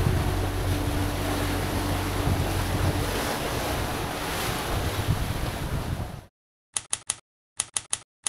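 Open-ocean waves rushing past a sailing catamaran's hull, with wind buffeting the microphone. About six seconds in it cuts off suddenly, and typewriter keys clack in short quick runs of three or four.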